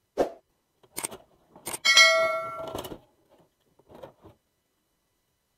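Bare circuit boards knocking together as they are handled. There are a few sharp clicks, then about two seconds in a louder knock that rings for about a second with a metallic ding. Softer clicks follow around four seconds in.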